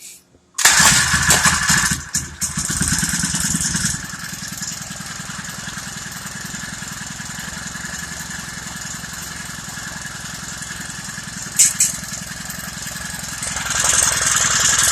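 Honda GXH50 49cc single-cylinder four-stroke engine starting after a short silence, running loud for the first few seconds, then settling to a steady, even run. Two short sharp clicks come a little before the end, and the engine rises in speed near the end.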